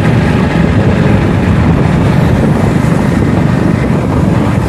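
Loud, steady wind rush and rumble on the microphone of a moving motorcycle, with the ride's road and engine noise blended into it.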